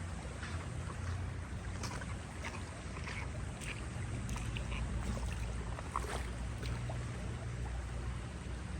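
Outdoor water ambience: small splashes and trickles of moving water over a steady low rumble.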